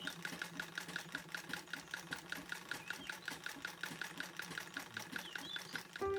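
Singer sewing machine stitching at a steady pace, its needle mechanism clicking about five to six times a second; it stops near the end.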